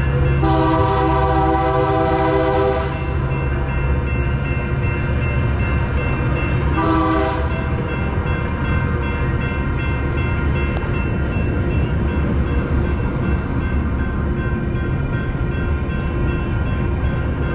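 Metrolink commuter train sounding its multi-note horn: a long blast about half a second in, then a short blast about six seconds later, over the steady low rumble of the train rolling slowly along the platform.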